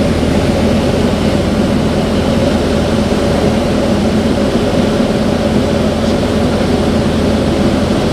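Aero AT-3 light aircraft's Rotax 912 four-cylinder engine and propeller running steadily in flight, heard from inside the cockpit.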